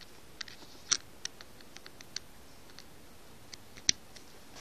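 Faint, scattered light clicks and taps of handling, with two sharper ones about a second in and near the end.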